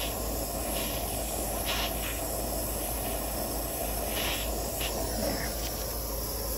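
Butane micro torch flame hissing steadily as it heats a fine silver wire ring to its fusing point, where the metal starts to liquefy. The hiss cuts off at the very end as the torch is taken away.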